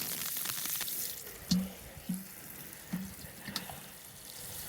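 Water pouring and splashing, heaviest in the first second and then trickling more quietly, with a few soft thumps along the way.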